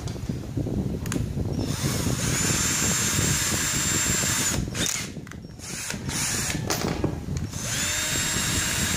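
Cordless drill motor running in two runs of a few seconds each, starting about two seconds in and again near the end, with a steady high whine. The keyless chuck is held by hand and spun open and shut by the motor to change a drill bit. Rattling and handling of the drill and bits come in between.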